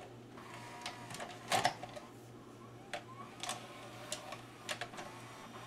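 The cassette loading mechanism of a Marantz MV8300 D-VHS deck (JVC-built) drawing in a tape and threading it. A faint motor whine sits over a steady low hum, with a string of irregular mechanical clicks and clunks as the transport goes through its load cycle.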